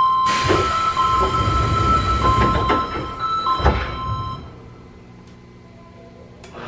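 Sendai City Subway 1000 series door chime, a repeating two-tone electronic pattern, sounding while the doors slide shut with a rush of noise. The doors close with a thump a little under four seconds in, after which only a quieter steady hum remains.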